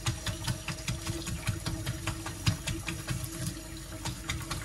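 Kitchen tap running onto a paintbrush in a stainless steel sink, the water splashing and spattering irregularly as the bristles are worked under the stream to rinse out water-based emulsion paint, over a steady low hum.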